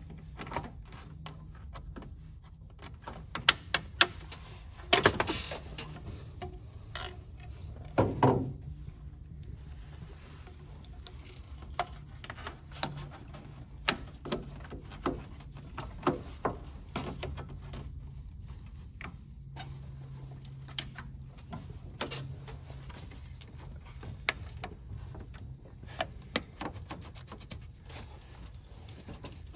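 Scattered clicks, knocks and rubbing from reinstalling a car's upper radiator hose: hose clamp pliers working a spring clamp and the rubber hose being worked onto its fitting. The loudest knocks come between about three and nine seconds in, over a low steady hum.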